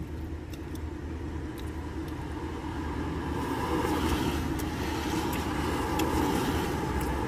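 Steady low car rumble heard from inside a car, swelling louder over the second half, with a few faint clicks.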